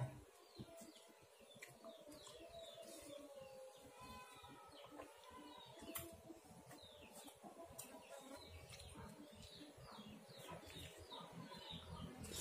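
Faint chirping of small birds: many short falling calls scattered throughout, over quiet room tone with a few soft clicks.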